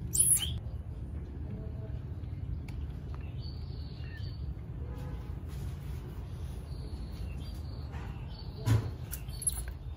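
Baby monkeys giving short high squeaks and chirps while being bottle-fed: one sharp squeal at the start, faint chirps through the middle and a brief louder sound near the end, over a steady low background rumble.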